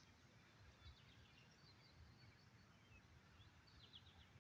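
Near silence: faint outdoor background with a few faint bird chirps, about a second in and again near the end.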